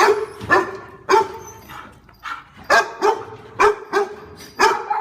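A dog barking repeatedly, about nine loud, sharp barks in an irregular series, some in quick pairs.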